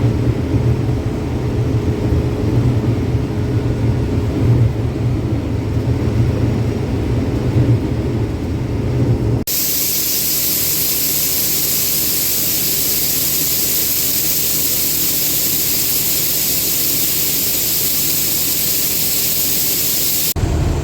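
An older combine running while shelling corn, a steady low engine and machine drone. About halfway through, the sound changes abruptly to a steady, even hiss.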